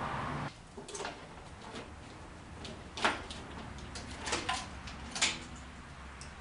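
Scattered clicks, knocks and clatter of a car's heater hose assembly being worked free and pulled out of the engine bay, the sharpest knocks about three seconds and five seconds in. A steady rushing noise runs for the first half second and cuts off abruptly.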